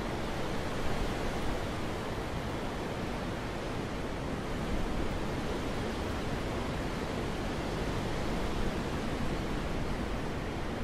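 Wind blowing steadily: a dense rushing noise with a deep rumble underneath and small swells in strength.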